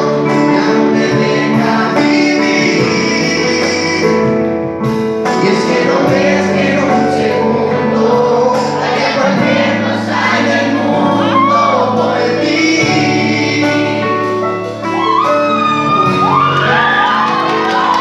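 A male singer performing a song live into a microphone, accompanied by acoustic guitar and keyboard.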